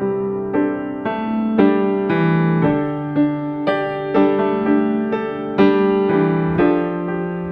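Background piano music: a calm melody of notes struck about twice a second, each ringing away slowly.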